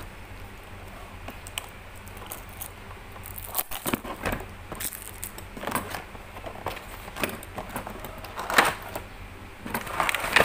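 A printed cardboard product box being handled and opened by hand: irregular rustling, scraping and tapping of the cardboard and lid, with two louder knocks near the end.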